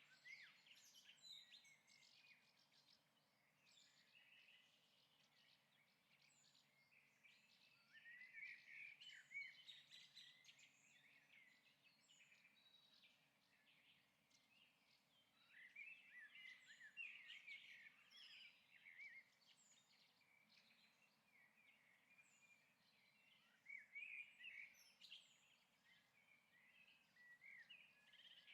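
Faint twittering and chirping of small birds, swelling in busy bursts every several seconds.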